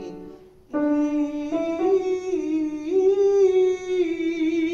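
A single voice sustaining a short vocal warm-up melody, stepping up and down in pitch by small steps without a break. It enters about a second in, just after a piano chord dies away.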